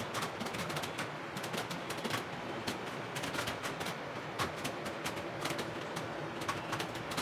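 Several computer keyboards clattering at once as a group of students types a timed test: fast, irregular, overlapping key clicks.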